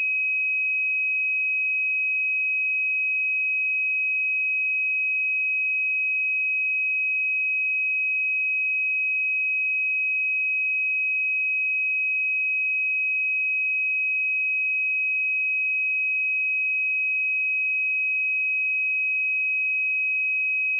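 A pure 2538 Hz sine-wave test tone, one steady high-pitched note at constant loudness.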